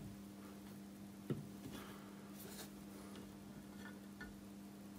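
Faint clicks and light scraping of a micrometer being handled and closed onto a cast-iron lathe saddle, with one soft knock about a second in, over a low steady hum.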